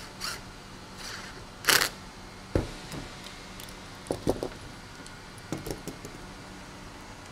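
A scatter of short clicks, knocks and rustles as tools and PVC trim boards are handled on a plywood work table: a cordless drill set down and a face clamp worked and released at a pocket-screwed joint.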